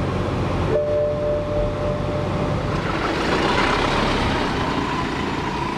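Car driving: steady engine and road-noise rumble, growing brighter and hissier about three seconds in.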